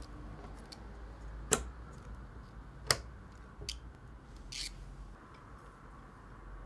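A DDR3 memory module being pressed into a motherboard DIMM slot: two sharp plastic clicks about a second and a half apart as the slot's latches lock the module into place, then a fainter tick and a brief soft rustle.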